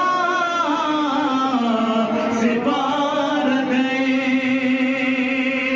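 A man's voice chanting melodically: a wavering, ornamented phrase at first, then one long held note.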